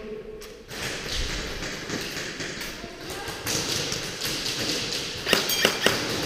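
Airsoft game noise: gear rustling and light knocks as the player moves behind cover, then near the end a quick run of about five sharp cracks in under a second, typical of airsoft guns firing in the hall.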